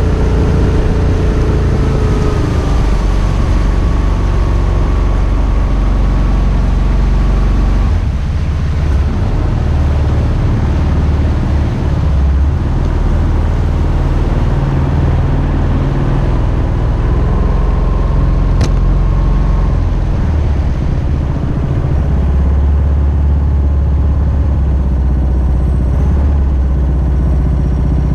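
Mokai jet boat's Subaru EX21 single-cylinder engine running steadily through its water-cooled muffler. The engine note eases down slightly about two seconds in and changes again a few times with the throttle. There is a single sharp click partway through.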